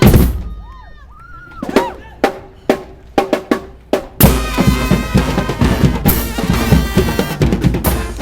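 Brass band music: a loud cymbal crash that dies away, then a sparse break with a few separate drum hits and some bending horn tones. About four seconds in, the full band comes back in, horns over a steady beat of bass drum and snare, with more cymbal crashes.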